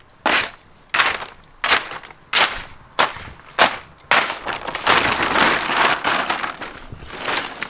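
Thin plastic parts bag crackling as it is handled: a string of sharp crackles about every two-thirds of a second, then continuous crinkling over the last few seconds.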